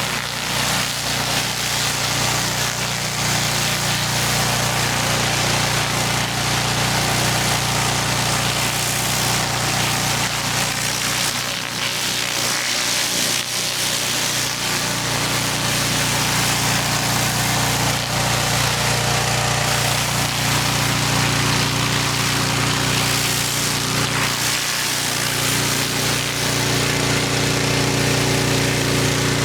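Pressure washer's small petrol engine running steadily under load, with the continuous hiss of high-pressure water spray on concrete.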